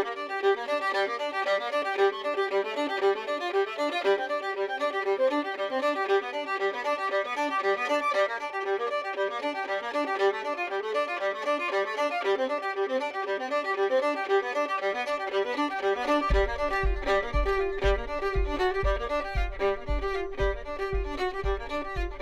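Cape Breton style fiddle tune: a fiddle playing a quick melody of many short notes. A low, steady beat of about two a second joins about two-thirds of the way in.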